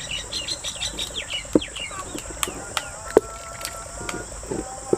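Birds chirping and twittering, busiest in the first couple of seconds, over a steady high insect drone. A few sharp knocks cut through, the loudest just past the middle: a wooden spoon striking the clay handi as thick haleem is stirred.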